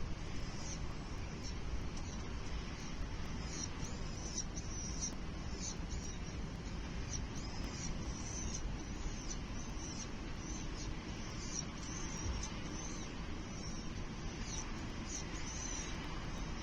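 Nestling chicks giving short, high-pitched chirping calls that repeat irregularly throughout, over a steady low rumble.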